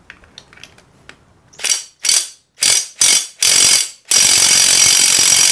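Cordless impact driver hammering on the 14 mm clutch pressure-plate bolt, whose clutch is held still by a holding tool. The impact driver goes in about five short bursts, then one long continuous run for the last second and a half, loosening the bolt.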